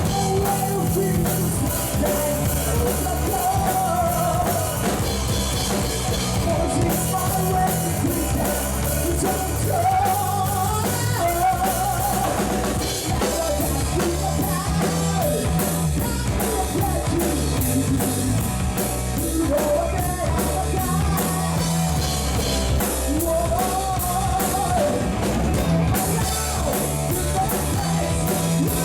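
Rock music with a drum kit, bass and a sung melody, playing steadily throughout.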